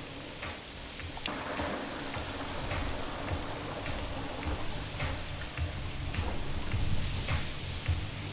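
Runway soundtrack: a steady rain-like hiss with scattered sharp clicks, and low bass notes that grow stronger about halfway through.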